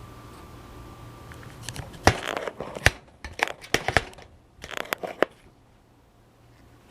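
Handling noise from gluing a plastic stove knob: a run of sharp clicks and crinkling, like plastic and paper being handled, lasting about three seconds from about two seconds in, then quiet.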